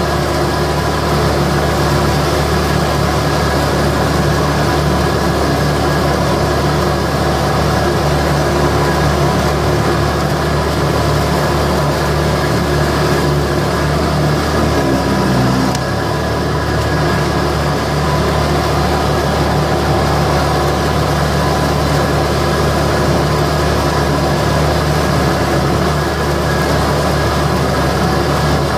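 Perkins three-cylinder diesel of a 1998 Ransomes Frontline 728D front mower running steadily as the mower drives through tall grass with the deck cutting. The engine note dips briefly about halfway through.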